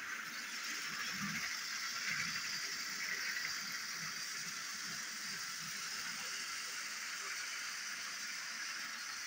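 Battery-powered toy train running on plastic track: a steady high whir from its motor, with irregular low clatter from the wheels and cars on the track.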